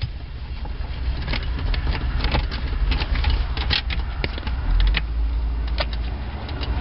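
Small screwdriver backing screws out of a plastic under-dash trim panel: scattered light clicks and ticks at irregular intervals, over a steady low rumble.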